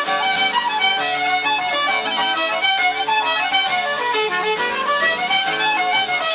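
Irish traditional jigs played by a folk band, with fiddle in the lead over a steady beat and a quick run of melody notes.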